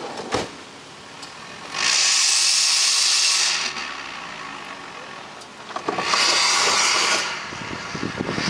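Red Ford Windstar minivan being revved twice, each rev a loud hissing whoosh of a second or two that sounds like a turbo. Near the end a crackle of gravel under tyres starts as the van pulls away.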